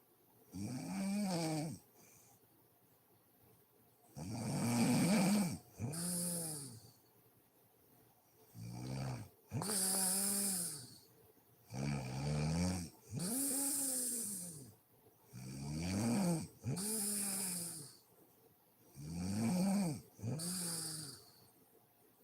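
A sleeping woman snoring: pitched snores that rise and fall in pitch, coming in pairs about every four seconds, with a breathy hiss alongside and quiet gaps between breaths.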